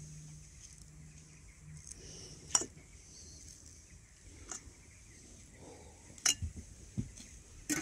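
Metal kitchen tongs clicking against enamel bowls and a metal plate while breaded chicken nuggets are served: a few sharp clicks a second or two apart, with a couple of soft knocks near the end.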